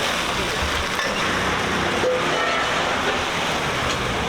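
Steady sizzling and gas-burner noise from shrimp pad thai being stir-fried in a street-stall pan, with faint voices in the background.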